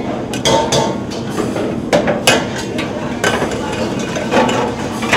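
Metal ladle knocking and scraping irregularly against a large steel kadai while a thick corn curry is stirred, over a steady background noise.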